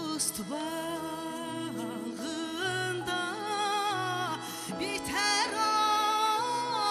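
A woman sings a slow, ornamented melody with a wavering voice, accompanied by an ensemble of bowed folk strings (kamanchas).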